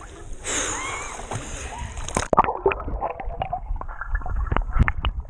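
Lake water sloshing and splashing around a waterproof camera held at the surface. About two seconds in, the camera dips under and the sound turns muffled, with underwater gurgling and scattered clicks.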